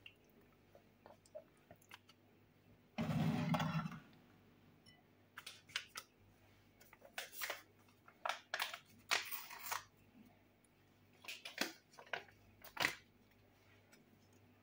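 Irregular light clicks and rustles of things being handled on a kitchen counter, with a short mumble of voice about three seconds in.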